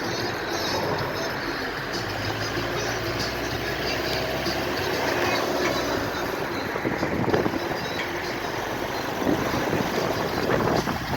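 A motor vehicle running, with steady road noise and a few short louder bumps near the end.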